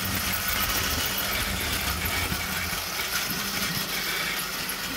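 Knock-off battery-powered toy train's small motor and plastic gears running steadily as the locomotive pulls its wagons along plastic track.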